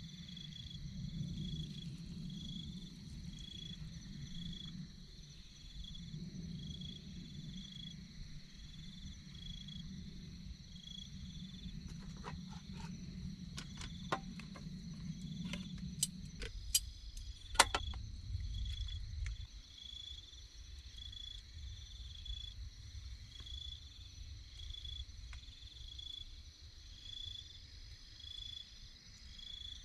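An insect chorus at a campsite: a steady high trill with a pulsed chirp repeating about once a second. A low hum drops out about halfway through, and a handful of sharp clicks come just before that.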